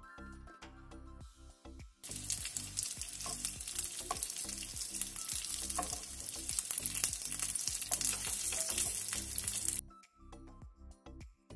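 Slices of blood sausage (morcilla) sizzling as they sear in a hot, dry non-stick frying pan, frying in their own fat, with a few clicks of metal tongs turning them. The sizzle starts about two seconds in and cuts off abruptly about two seconds before the end, with soft background music on either side.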